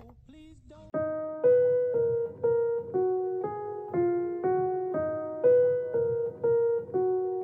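Piano music: a simple melody of single decaying notes, about two a second, starting about a second in after a near-quiet moment.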